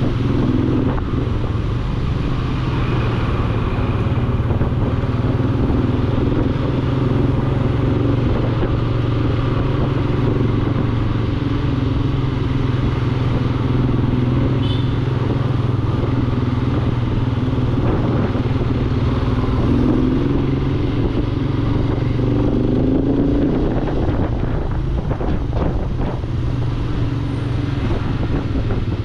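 Motorcycle engine running at low road speed, heard from the rider's seat: a steady low drone that wavers a little as the throttle changes.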